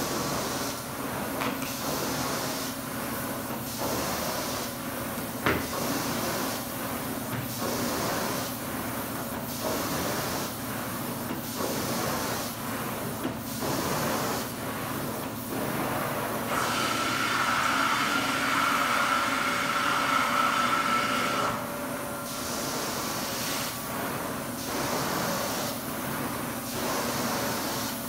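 Hot water extraction carpet-cleaning wand running over carpet: a steady rush of suction and spray hiss that swells and fades about once a second with each stroke of the wand. Midway it turns louder and steadier, with a whistle, for about five seconds.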